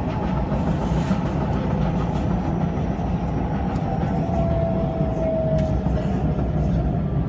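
Singapore MRT train running along an elevated track, heard from inside the carriage as a steady rumble. A faint high whine rises slightly about four seconds in.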